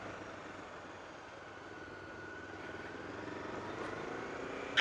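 1999 Honda CB500S parallel-twin engine running at low speed, slowly growing a little louder, with one sharp click near the end.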